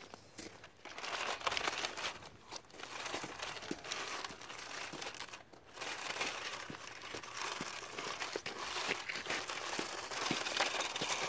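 Plastic toy salt-and-sand spreader truck pushed by hand over icy, gritty pavement: a steady crackling and crunching of its wheels and spreader on the ice and sand, broken by a short pause about five and a half seconds in.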